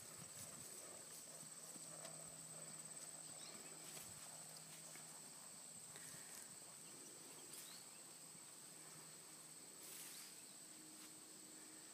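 Near silence: faint, irregular hoofbeats of a horse walking on grass, over a steady high-pitched whine.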